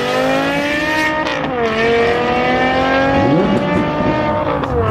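BMW M5 E60's V10 engine with a Supersprint exhaust accelerating hard at full throttle. The revs climb steadily, drop sharply at an upshift about a second in, then climb again to a second upshift near the end.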